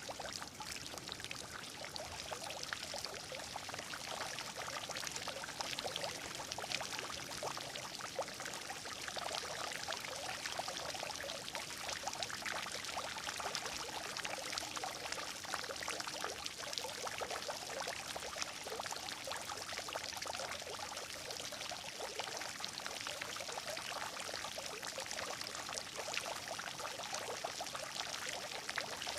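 Water running and gurgling steadily, a continuous trickle full of small splashes.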